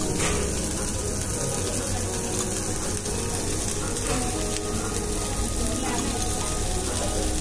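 Vegetable broth boiling in an electric hot pot under a glass lid: a steady bubbling hiss.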